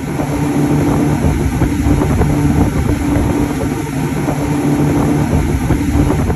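Twin Suzuki outboard motors running at speed on a boat: a steady engine drone over the rush of the wake and wind.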